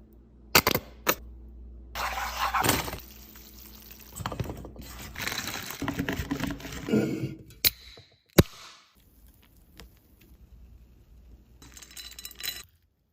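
Kitchen handling sounds: several sharp clicks and knocks between stretches of scraping, rustling noise.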